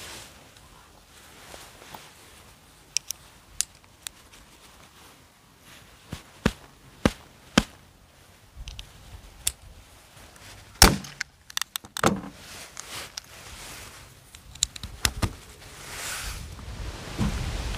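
Metal parts of a motorcycle racing muffler being handled and fitted: scattered sharp clicks and knocks as the end cap is pushed into the silencer body and pop rivets are set in the holes, with one louder knock near the middle.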